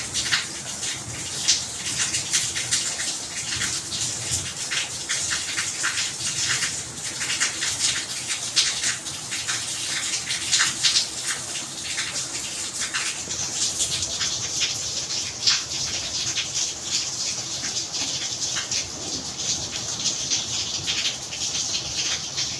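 Steady rain, with many sharp drips and drop splashes striking hard surfaces close by.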